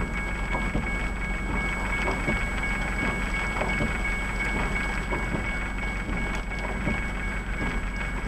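Steady rain pattering on a stopped car with its engine idling, with a faint steady high-pitched whine running through it.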